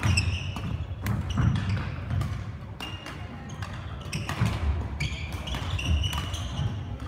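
Badminton rally in a large sports hall: sharp racket hits on the shuttlecock, trainers squeaking in short high chirps on the court floor, and footsteps thudding, all echoing.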